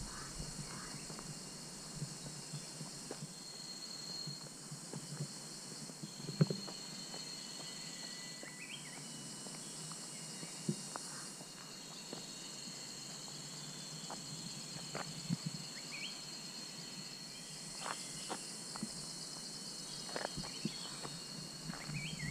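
Insects droning in a steady, thin, high-pitched buzz, with a few faint ticks and short chirps over it.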